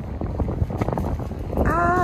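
Wind noise on the microphone, a steady low rumble, with a brief high-pitched voice sound near the end.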